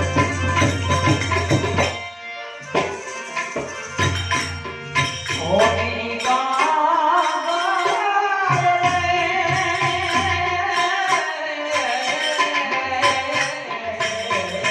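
Gujarati santvani devotional folk music: percussion keeps a steady beat, and about five seconds in a singer comes in with a long, wavering sung line.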